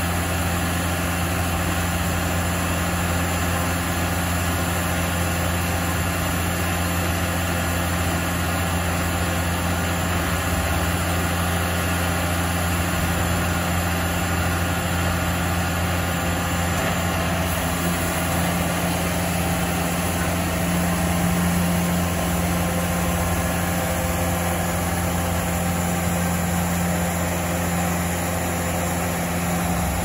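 The 74-hp Deutz diesel engine of a Baker Blue Streak 3674D portable band sawmill runs steadily at a constant pitch while the band blade saws lengthwise through a log.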